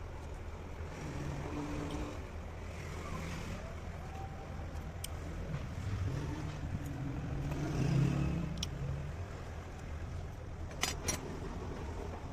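Steady low engine rumble with a few sharp metallic clicks.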